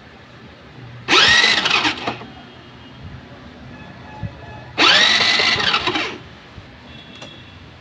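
Hero Pleasure scooter's electric starter motor cranking the engine twice, about a second each time, with the spark plug out for a spark check. Each burst whines up in pitch and falls away as the button is released.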